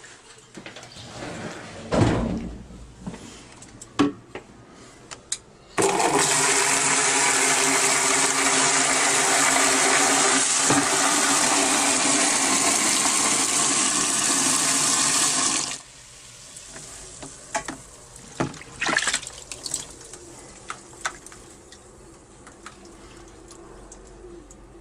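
Water from a tap running hard onto the BlitzWolf BW-F3 speaker in its water-resistance test, starting suddenly, running for about ten seconds and cutting off. A few knocks from handling come before and after.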